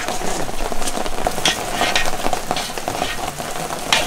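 A cast-iron kettle of thick, steaming panhaus (scrapple) mush being stirred with a long paddle and ladled out, giving a steady hiss with several short scrapes and clinks.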